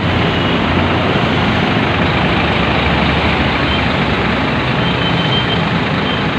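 Steady loud road traffic: a coach bus's engine running as it drives past, with cars and motorcycles going by on the road.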